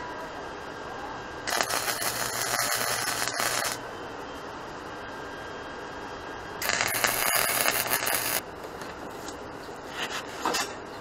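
Arc welding on a steel-tube go-kart frame: two welding bursts of about two seconds each, a noisy crackle with a low hum under it.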